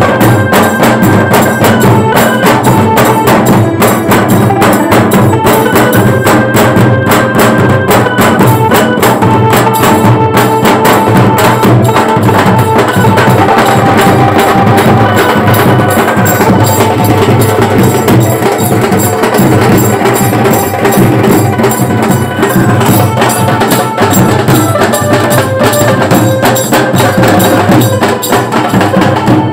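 Bengali wedding band playing loudly, recorded on a phone mic: fast, steady drumming under a melody of held notes in short phrases.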